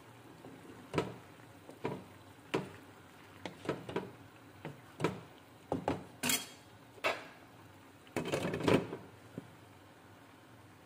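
A utensil knocking against a pan of curry about a dozen times while stirring. Then a glass pan lid is set down on the pan with a short, louder clatter a little after eight seconds in.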